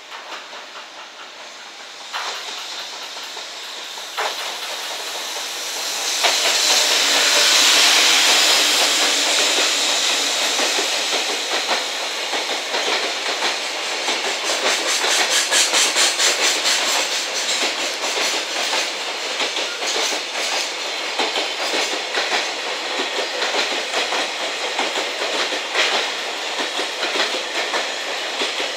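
Container freight train hauled by an EF210 electric locomotive passing close by. A rushing hiss swells as the locomotives go past, about six to ten seconds in. Then comes a steady clickety-clack of the container wagons' wheels over the rail joints.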